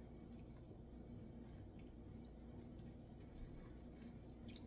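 Near silence: a steady low room hum with a few faint wet ticks and drips as a raw chitterling is handled and its membrane pulled off over a bowl of water.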